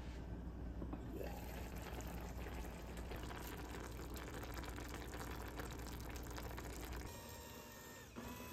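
Kabocha pumpkin and onion simmering in liquid in an enamelled cast-iron pot: a steady bubbling with fine crackles, which gets louder about a second in.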